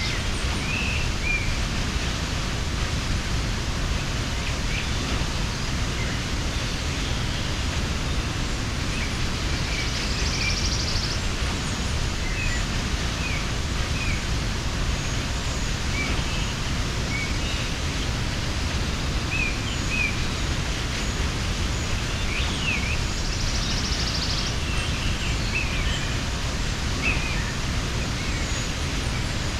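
Mountain waterfall rushing steadily, with small birds chirping faintly and intermittently over it.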